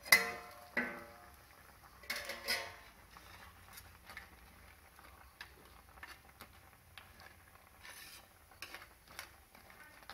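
A stainless steel lid taken off a clay cooking pot with a sharp, ringing clang, and another ringing metal clatter about two seconds in. Then a steel ladle stirring the boiling crab curry, with faint scattered clinks.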